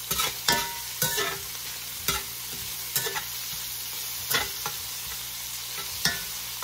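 Chopped bacon, garlic and rosemary sizzling in a hot cast iron skillet, with a steady hiss. A metal utensil scrapes and knocks against the pan at irregular intervals, about once a second, as the food is stirred.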